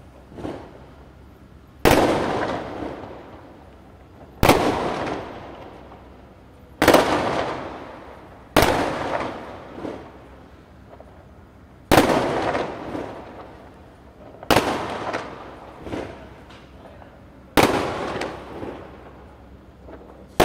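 Aerial firework shells bursting one after another: about seven loud bangs, two to three seconds apart, each followed by a long echoing tail, with smaller pops and crackles in between.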